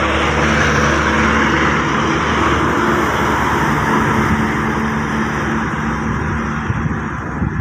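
Daewoo BV115 bus's diesel engine running loud as the bus drives past close by, easing off a little near the end as it pulls away.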